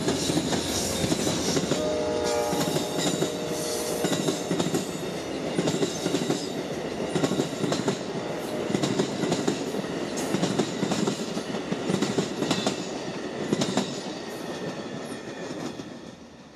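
Amtrak passenger train led by GE P42DC Genesis diesel locomotives passing at speed: the rumble of the train with a steady clatter of wheels over the rail joints, and a short horn chord about two seconds in. The sound dies away near the end as the last cars go by.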